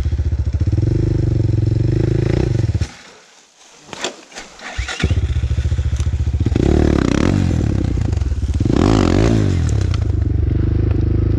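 Motorcycle engine running, falling silent about three seconds in with only a few clicks and knocks, then running again about two seconds later and revving up and down.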